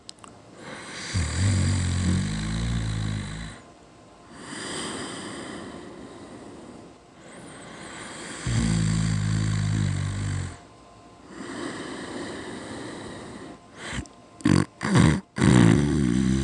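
Snoring in a slow breathing rhythm: two long, loud snores, each followed by a softer breathy breath, then a quick run of short snorts near the end before another snore begins.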